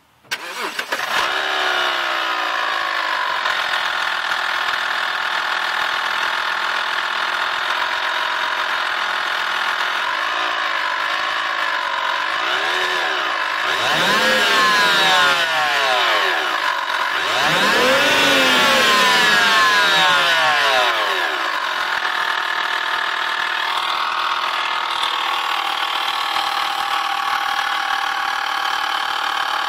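BMW N52 3.0-litre inline-six starting up and settling into a steady idle, then revved twice about halfway through, rising and falling in pitch, before dropping back to idle. It carries a persistent tick that the owner places near the alternator and suspects of coming from the alternator, belt tensioner, a pulley or the vacuum pump rather than the valves.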